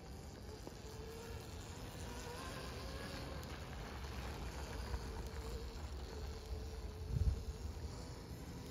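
Electric motor of a 1992 Kawasaki KX80 dirt bike converted to electric drive, giving a faint buzzing whine that wavers in pitch as the bike rides by. Wind rumbles on the microphone, with a stronger gust near the end.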